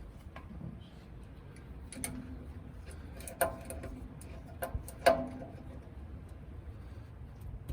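Irregular metallic clicks and clinks of hand tools on steel truck parts, with two louder ringing clanks about three and a half and five seconds in.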